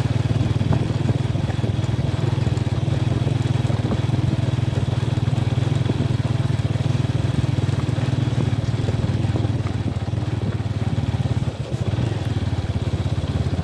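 Honda Tiger's single-cylinder four-stroke engine running steadily as the motorcycle is ridden slowly over a rough dirt road, its exhaust beat dipping briefly a little before the end.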